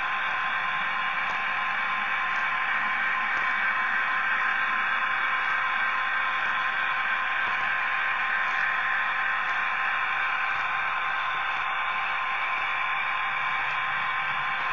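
Steady static-like hiss from a model train's on-board camera, with a faint steady whine under it and faint regular ticks.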